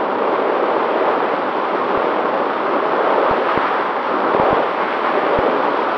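Steady rush of wind and propeller noise on the onboard camera microphone of an FPV aircraft in flight, with a few brief low thumps of wind buffeting.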